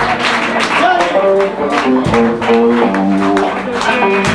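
Blues band playing live: a melody of held, stepping notes over a steady drum beat.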